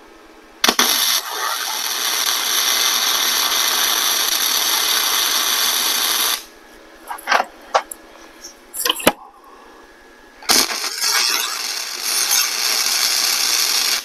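Flux-core wire welder arc crackling and sizzling in two welds, one of about six seconds and then one of about three and a half, with a few sharp clicks in the pause between them.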